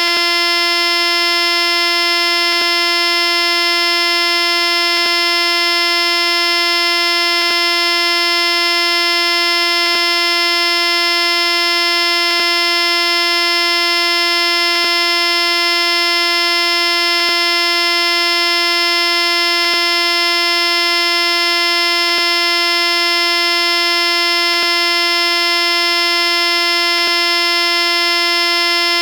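A steady, buzzy electronic tone held at one mid pitch without change, with a faint click about every two and a half seconds where the looped sound repeats.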